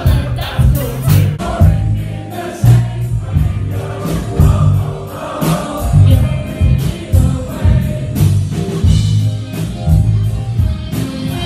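Loud live electropop music with a heavy, pulsing bass beat, drum hits and singing, heard from within the crowd.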